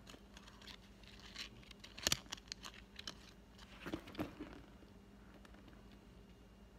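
Light rustling and small clicks of a handbag and its paper sales tag being handled, loudest about two seconds in, with a few more around four seconds, then dying down.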